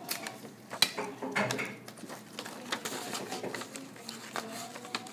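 Sheets of paper rustling and crinkling as they are folded and handled, with scattered light taps and one sharp click a little under a second in.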